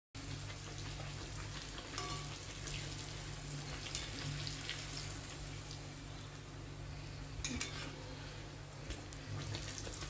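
A chhatur kochuri deep-frying in hot vegetable oil in a karahi, the oil sizzling steadily. A few light clicks come as the metal spatula touches the pan while turning the kochuri.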